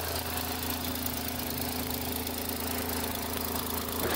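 Newly installed replacement engine in a 2009 Honda Accord idling steadily and quietly on its first run after the swap.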